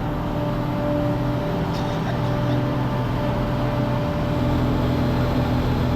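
SIAI-Marchetti SF.260 trainer's piston engine and propeller running steadily at low power, growing slightly louder.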